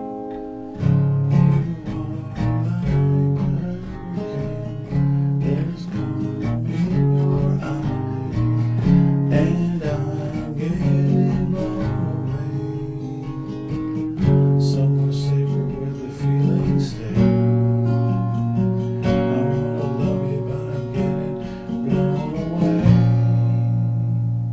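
Acoustic guitar music: a run of plucked and strummed notes and chords, with a final chord struck shortly before the end and left to ring.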